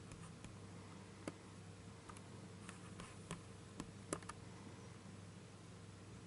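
Computer mouse clicking: a handful of light, scattered clicks, mostly between one and four and a half seconds in, over a faint steady low hum.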